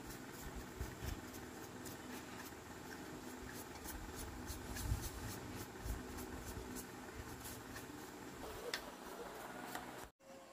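A small brush scrubbing and scraping dirt off the finned housing of an old electric motor, a run of short scratchy strokes with a few light knocks. It cuts off suddenly near the end.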